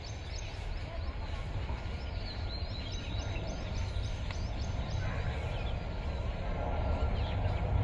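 Outdoor ambience with a steady low wind rumble on the microphone and faint birds chirping high in the background, busiest in the middle.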